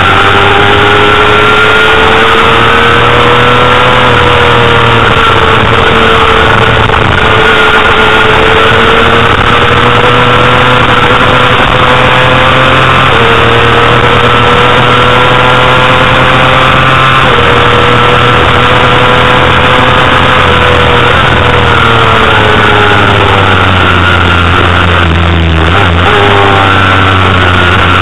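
Honda CBR250RR's 250 cc inline-four racing engine running at very high revs, its pitch climbing and dropping briefly at two upshifts about halfway through, then falling through several downshifts late on before climbing again near the end. Steady wind rush over the onboard microphone runs underneath.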